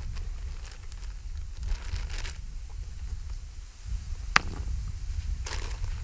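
Plastic sandwich bag crinkling in short bursts as it is handled, with one sharp click a little past the middle, over a steady low wind rumble on the microphone.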